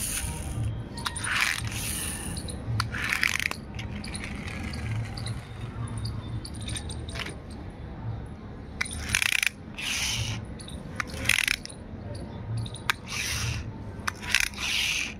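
Small plastic toy cars being handled: irregular short rasping scrapes and clicks as their wheels turn against the fingers and roll on concrete.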